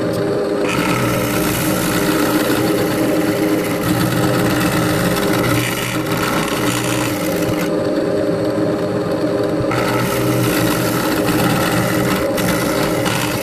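Milling machine running, its cutter hogging plastic off a gearbox housing: a steady motor hum with a rasping cutting noise that comes in about a second in, drops out for about two seconds past the middle, and comes back.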